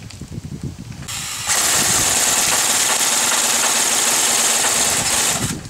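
Airsoft rifle firing one long burst on full auto, a steady mechanical buzz of rapid shots lasting about four seconds before it cuts off.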